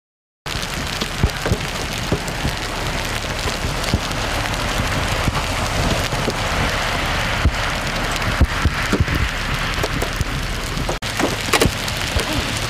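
Hail falling on pavement and grass: a dense, steady patter full of sharp ticks of hailstones striking, starting abruptly about half a second in, with a brief gap near the end.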